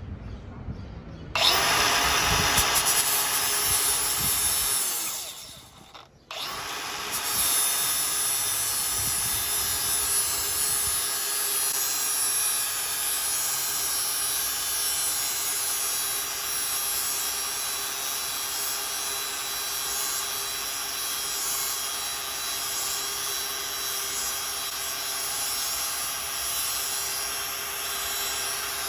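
Angle grinder switched on and grinding down a weld bead on thin sheet metal, a steady high whine with a grinding hiss. It cuts out briefly about five seconds in and starts again about a second later, then grinds steadily on.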